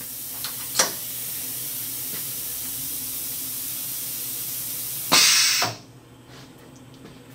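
Steady hiss of air, with two sharp clicks near the start. About five seconds in comes a short, loud blast of air.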